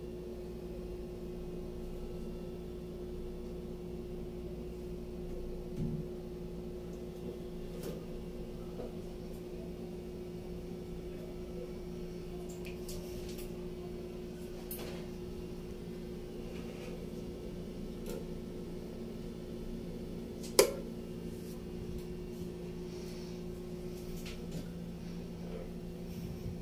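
Steady low mechanical hum, like a motor or appliance running, with a few scattered faint clicks and one sharp click about twenty seconds in.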